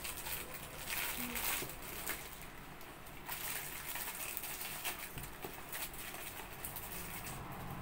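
Paper and cardboard packaging rustling and crinkling as unboxed items are handled, with a pigeon starting to coo near the end.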